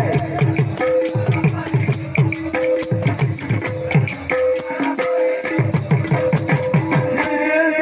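Kirtan music: khol barrel drums played in a fast rhythm, the deep strokes sliding down in pitch, over a steady jingle of hand cymbals. The drums stop near the end.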